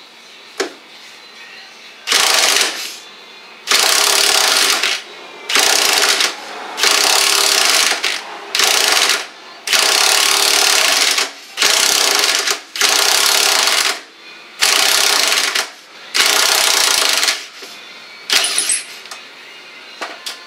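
An impact wrench hammers on a seized, rusted lower control arm bolt in about ten short bursts with brief pauses between them. The bolt is breaking loose and backing out.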